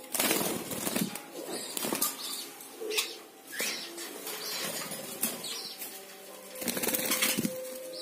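King-size budgerigars fluttering their wings against the wire cage in several short flurries, the longest near the end, with brief chirps in between.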